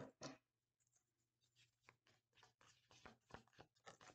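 Faint, irregular soft clicks and rustles of a tarot deck being shuffled and handled by hand.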